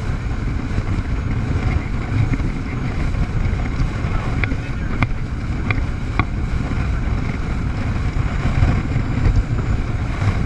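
Jet ski running at speed, a steady rushing engine and water noise with wind buffeting the microphone, and a few short sharp ticks about halfway through.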